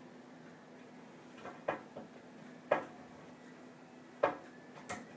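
Chrome snare drum stand being adjusted by hand: sharp metallic clicks and clanks from its clamps and basket arms, about five knocks spread over a few seconds, each with a short ring.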